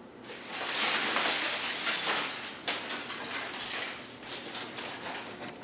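Foil emergency blanket crinkling and rustling: a dense crackle of many small clicks that sets in about half a second in and swells and fades.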